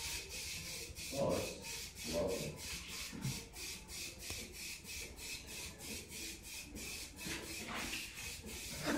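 Aerosol spray paint cans hissing as old cast iron radiators are spray-painted, with a few soft knocks or rustles in the first few seconds.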